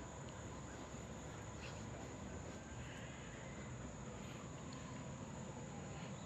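Faint, steady high-pitched insect chorus over a quiet background hiss.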